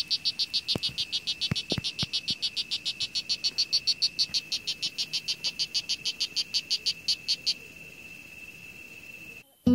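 Strawberry poison dart frog calling: a fast, even series of short high chirps, about seven a second, that stops about seven and a half seconds in. A faint steady high tone carries on after it.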